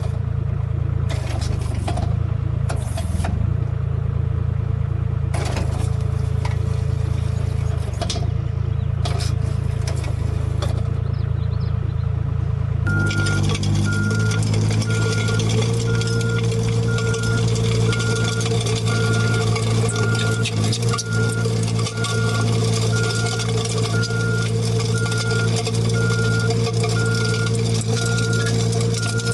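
Engine of a small construction machine running steadily, with a few knocks and clicks. About halfway through the sound cuts to another machine running, its reversing alarm beeping evenly about three times every two seconds.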